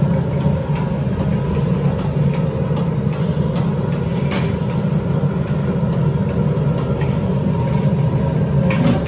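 Steel spatula scraping and tapping on an idli steamer plate as small idlis are lifted off, a few light clicks spread through, over a loud, steady low rumble.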